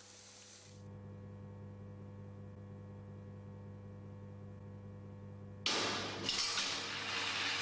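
A low steady hum, then, most of the way through, a sudden loud metallic clatter and rattling of an iron ball landing and rolling on the machine's steel parts, with clinks.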